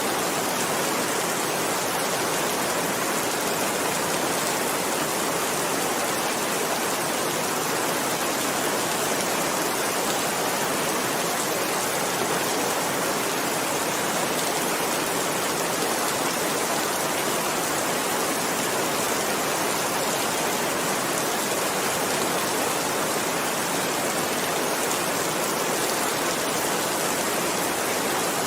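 Heavy rain falling steadily: a dense, even hiss of countless drops that does not swell or break.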